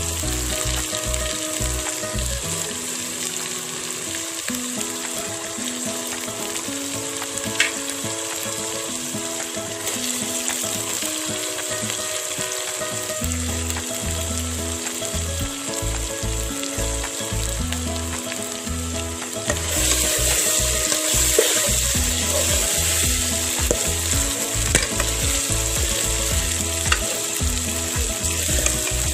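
Spice-coated fish pieces shallow-frying in hot oil: a steady sizzle that grows louder about two-thirds of the way through.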